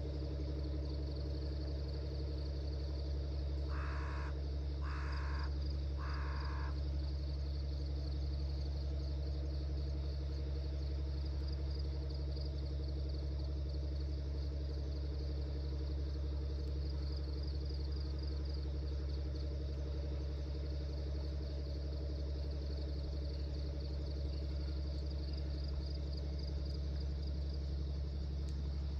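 A crow cawing three times, about a second apart, some four seconds in, over a steady pulsing chirr of insects and a constant low hum.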